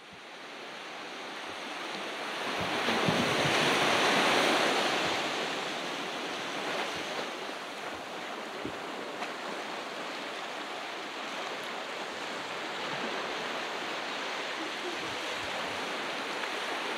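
Ocean surf on a beach: a wave swells and breaks, loudest about three to five seconds in, then settles into a steady wash.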